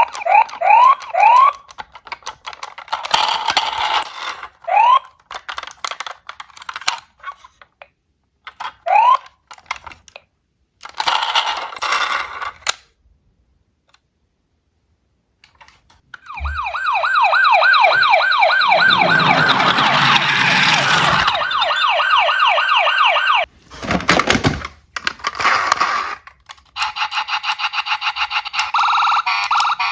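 Electronic siren sounds from toy emergency vehicles: a few short rising chirps at the start, then, after a pause of a few seconds, a loud fast-warbling siren, ending in a steady electronic alarm tone. Clicks and clatter of die-cast toy cars fall between them.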